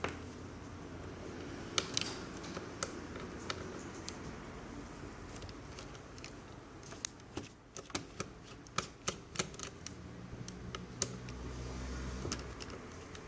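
Irregular light clicks and taps of small plastic laptop parts and tools being handled during disassembly, a few at first and then a quicker run of clicks in the second half.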